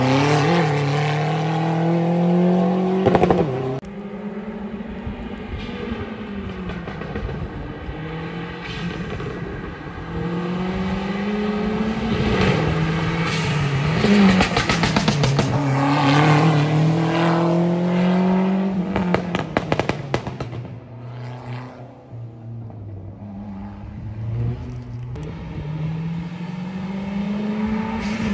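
Fiat Punto GT's turbocharged four-cylinder engine revving hard and easing off again and again as the car is driven fast through a cone slalom, its pitch climbing and dropping with each burst of throttle and gear change. Loudest in the first few seconds, then heard from farther off.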